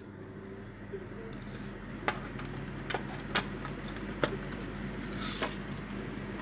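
Electric hand mixer's motor running with a steady hum, with several sharp plastic clicks and knocks as the mixer is handled.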